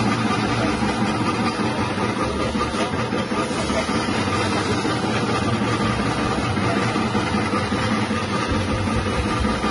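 Electric chip-slicing machine running steadily: its 180-watt motor and rotating cutter give an even mechanical hum and whir as it slices tubers into thin chips.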